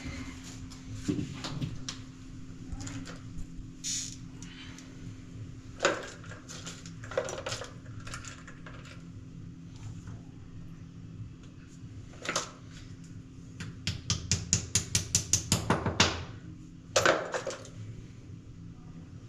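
Scattered knocks and clicks of handled objects over a steady low hum. Near the end there is a quick run of about a dozen taps, roughly six a second, followed by one more knock.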